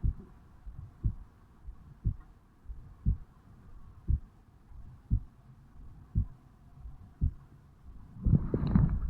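A man's resting heartbeat on waking, recorded at the mitral valve area of his chest: a low thump about once a second, regular and even. Near the end a louder rustling noise comes in over the beats.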